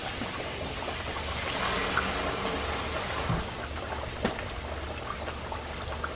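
Floured butterflied chicken deep-frying in hot oil in a pan: a steady sizzle with a few sharp pops.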